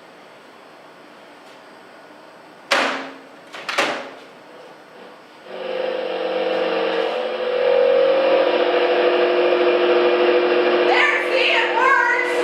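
Two sharp knocks about a second apart, then an old microwave oven starting up and running with a loud, steady electric hum. The hum is a stage sound effect.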